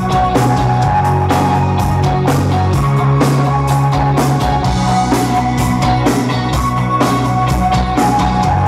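Live rock band playing loudly, heard from within the audience: drum kit keeping a steady beat under bass guitar, electric guitars and held higher notes.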